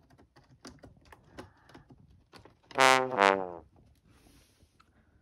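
Comic brass 'wah-wah' sound effect: two falling trombone-like notes about three seconds in. Faint scattered clicks and scratches come before it.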